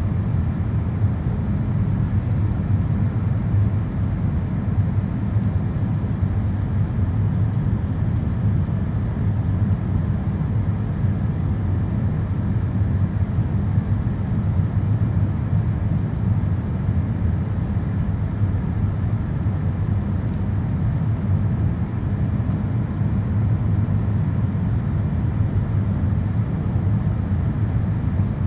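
Steady low rumble of a Boeing 787 airliner heard from inside the cabin.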